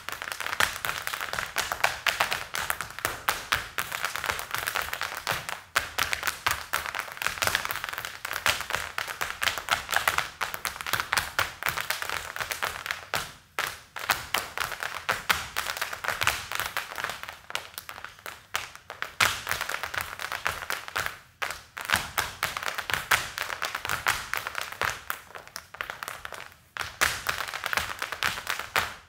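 Irish percussive dance by five dancers in hard-soled shoes stepping in unison, unaccompanied: rapid, dense heel and toe taps on the floor, with a few brief breaks between phrases. It stops suddenly at the end.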